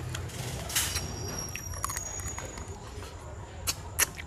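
Someone eating fried fish and rice by hand: a few sharp mouth smacks and clicks, two of them close together near the end, over a steady low hum.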